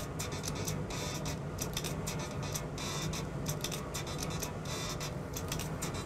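Soldering work on a laptop circuit board: irregular small scratchy clicks and crackles from the iron and tools working a jumper wire onto a pad, over a steady low hum.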